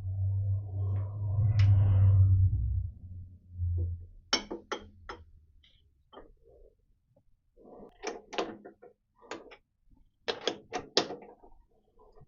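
A lathe's steady low hum stops about three seconds in, then clusters of sharp metallic clicks and knocks follow as a die is worked along a silver-steel bolt thread.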